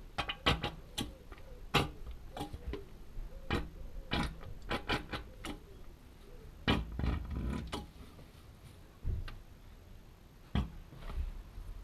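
Irregular clicks and crackles of a plastic oil bottle being squeezed to force oil into the axle filler hole.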